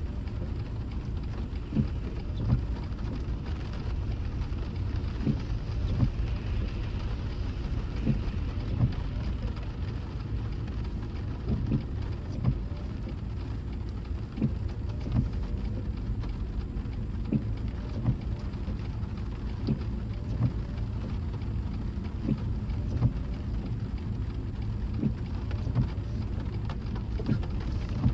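Rain on a moving car: raindrops tap the car's body in irregular sharp hits over the steady low rumble of the car on the road.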